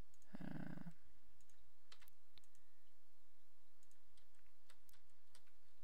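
A few faint, scattered computer keyboard and mouse clicks: keyboard shortcuts being pressed and the mouse clicked.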